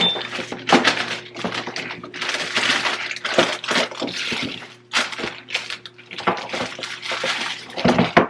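Plastic food packages and containers being handled and set down on refrigerator shelves: repeated clunks and clicks with rustling between them, the loudest knock near the end.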